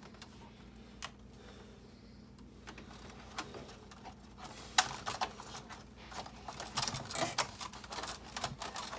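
Light clicks and rattles of plastic freezer parts and wiring being handled and pushed into place, sparse at first and busier from about five seconds in.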